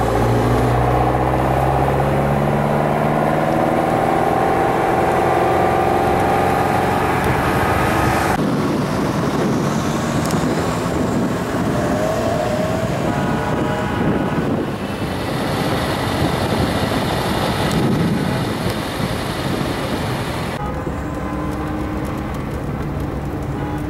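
Ferrari 308 GTS V8 engine heard from inside the car, pulling hard with its pitch rising steadily for the first eight seconds. After an abrupt change it is buried under a loud rush of wind and road noise. Near the end it settles into a quieter, steady cruise.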